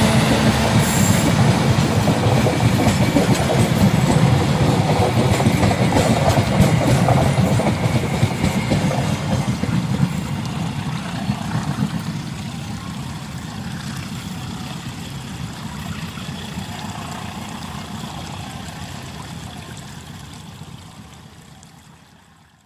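Passenger train running past, its wheels clattering over the rail joints. The rumble fades steadily over the second half as the train moves away.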